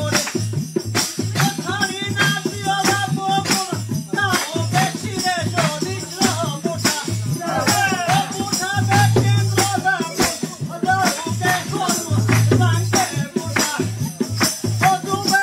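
Live Pahari jhuri folk song: a male voice singing over a steady percussion beat of about three strokes a second with a shaker-like rattle.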